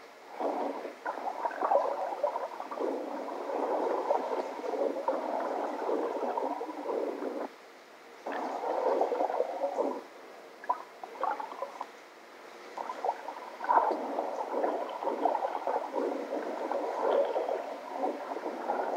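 Water sloshing and gurgling from swimming footage played back through small computer speakers, thin with no bass, coming in surges of a few seconds with brief lulls.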